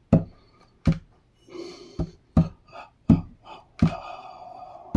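Hands drumming on a tabletop: about seven low thumps in a loose rhythm. Brief wordless vocal sounds fall between the beats, with a held sung note near the end.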